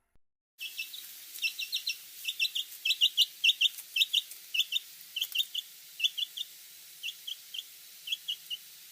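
Baby chicks peeping: many short, high peeps, often in quick twos and threes, beginning about half a second in and thinning out toward the end.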